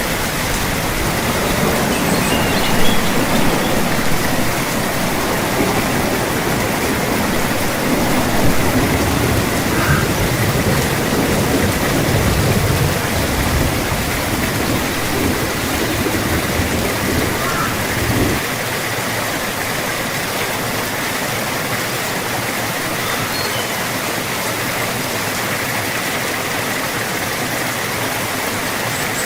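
Steady heavy rain, a dense even hiss. For the first two-thirds a low rumble runs underneath, and it cuts off abruptly.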